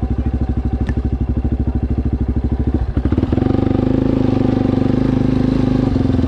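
ATV engine running with a fast, even pulsing beat; about three seconds in the note shifts and becomes steadier and slightly louder.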